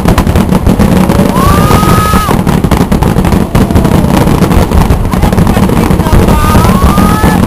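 Fireworks display: dense crackling throughout, with whistles that slide up in pitch and hold, one about a second and a half in and another near the end.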